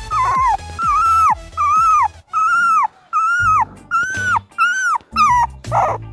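A puppy whining, about nine short, high-pitched cries in quick succession, each rising and falling in pitch, then a rougher yelp near the end.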